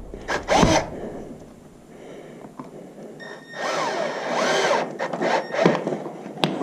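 Cordless drill-driver working the screws of a strap hinge fixed across a crack in a horse's hoof. The motor runs in short bursts, with its whine rising and falling in speed. The longest run comes about three and a half to five seconds in.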